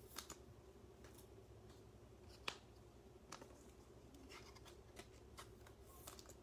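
Faint clicks and light taps of trading cards being handled and set down on a tabletop mat, the sharpest click about two and a half seconds in, over a faint steady hum.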